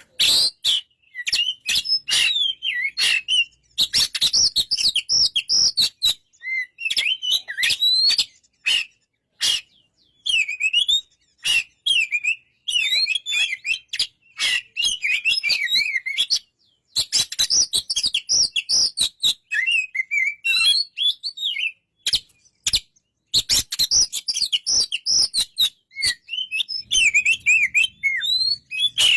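Oriental magpie-robin singing a long, varied song of quick whistled and warbled phrases, with sharp clicking notes mixed in and short pauses between phrases.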